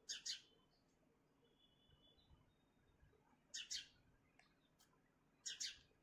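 House sparrow chirping: three pairs of short, sharp chirps a couple of seconds apart, with a faint thin whistle about two seconds in.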